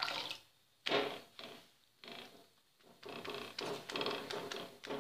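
A wet cloth rubbed and dabbed across the top of a jowar roti on an iron griddle, spreading water over the roti as its first side cooks. Separate rubbing strokes at first, then a quicker run of strokes from about three seconds in.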